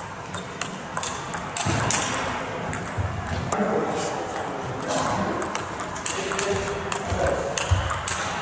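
Table tennis rally: the ball clicking sharply off bats and the table in quick alternation, about two hits a second, in a large hall. Voices murmur in the hall behind it.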